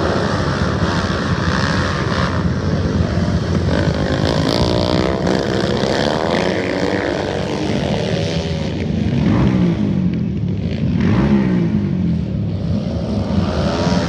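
Several racing motorcycle engines running hard around a dirt flat track, their pitch rising and falling again and again as the riders open up and back off through the turns.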